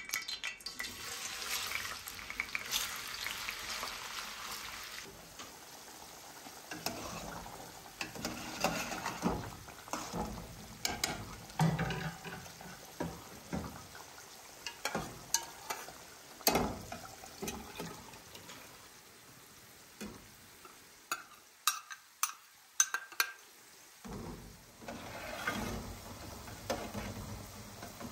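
Raw potato sticks going into a pan of hot oil and sizzling, the hiss strongest in the first few seconds, with a metal spoon knocking and scraping against a pot as a stew is stirred. The spoon makes many short clinks and knocks at intervals.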